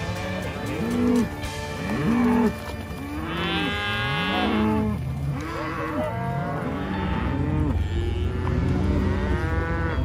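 A herd of cattle mooing and bawling, many calls overlapping, each rising and falling in pitch, over a steady low rumble.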